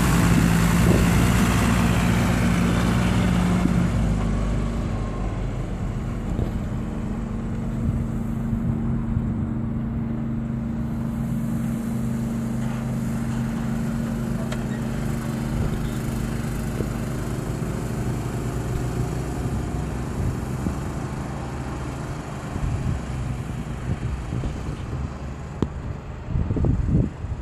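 Diesel engine of a water tanker truck running steadily as it drives past and pulls away, loud for the first few seconds and then quieter. While it is close, a hiss of water spraying from its rear spray bar onto the dirt rides over the engine.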